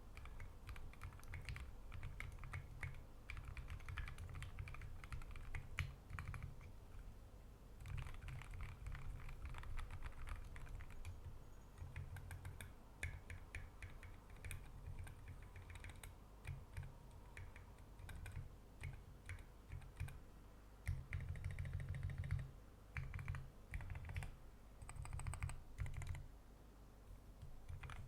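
Typing on a 60% custom mechanical keyboard with Gateron Ink Black v2 linear switches lubed with Krytox 205g0, an aluminium plate and SA-profile keycaps. The key presses come in quick runs broken by short pauses, with a brief lull near the end.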